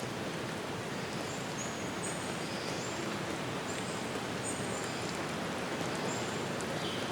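A steady rushing noise of falling water, with small birds giving many short, high, thin whistled notes scattered through it.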